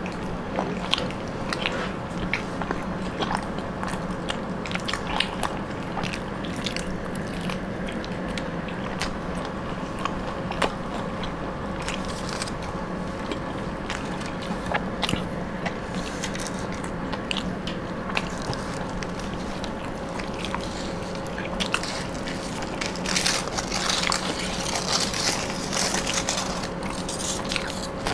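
People chewing and biting into homemade chicken rolls close to the microphone: wet chewing with scattered small crunches and clicks. A steady low hum runs underneath.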